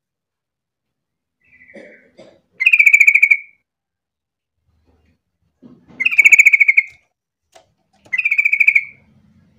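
Yellow-vented bulbul (trucukan) singing: three quick, rapidly pulsed phrases of about a second each, the first after a few soft notes.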